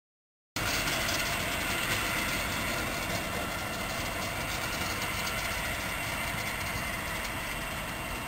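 Steady background rumble and hiss with no distinct events. The sound cuts out completely for about a second at the start.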